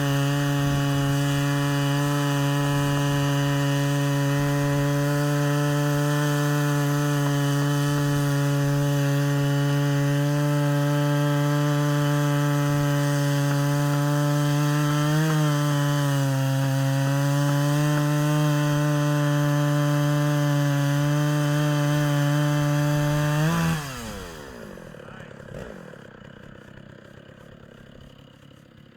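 Stihl MS 660 chainsaw on an Alaskan chainsaw mill, running at steady full throttle as it rips a long slab of western red cedar. Near the end the throttle is let off and the engine note falls quickly away.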